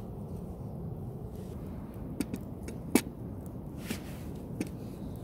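A handful of sharp pops and knocks from a wood campfire and a camping kettle being set down on it, the loudest about three seconds in, over a steady low rumble.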